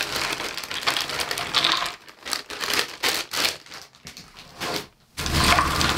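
Plastic bag crinkling as a bag of cardboard jigsaw pieces is emptied into the puzzle box, then a run of light clicks as the pieces tumble and settle. Near the end, a steadier rustle as the loose pieces are spread around by hand.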